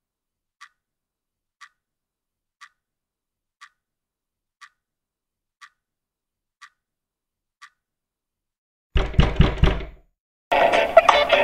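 A clock ticking softly once a second, then about nine seconds in a loud burst of rapid banging and crashing from a door being knocked in. Music starts near the end.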